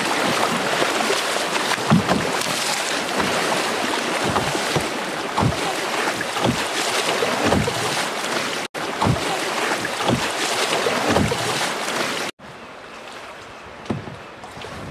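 Rough whitewater rushing and splashing around an open canoe running rapids, with heavy wind noise on the microphone and repeated low thumps. About twelve seconds in, it drops suddenly to a quieter, steady river rush.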